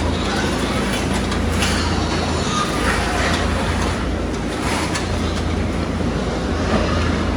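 Steady machine noise: a constant low hum under a rushing hiss, with a few faint knocks.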